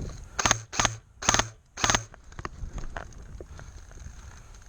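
Wind-up wheel of a high-capacity airsoft magazine being turned in four quick strokes, each a short burst of rapid ratcheting clicks, as the magazine is wound during a reload.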